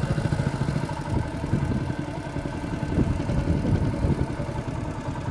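Small riverboat's engine running steadily, with a fast, even chugging beat.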